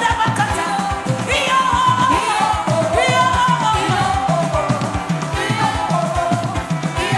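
Live worship music: a band playing over a fast, steady drum beat, with a sung melody line gliding above it.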